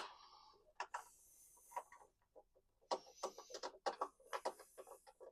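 Light, irregular clicks and taps from hand work on a car dashboard being refitted. There are a few isolated ticks at first, then a quicker run of clicking from about three seconds in.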